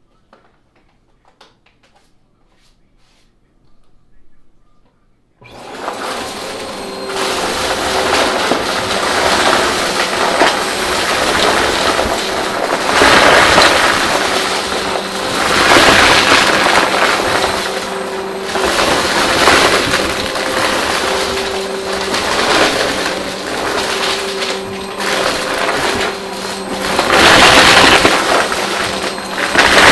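A few quiet clicks, then a vacuum cleaner switches on about five seconds in. It runs loudly with a steady motor hum, and the noise swells and eases every couple of seconds as it is pushed back and forth.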